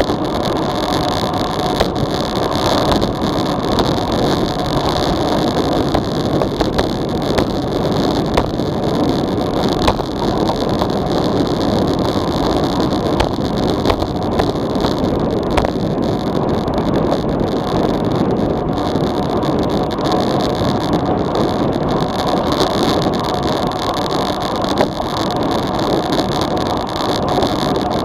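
Steady rush of wind and tyre-on-road noise picked up by an action camera's microphone on a road bike descending at about 40 km/h, with scattered small clicks throughout.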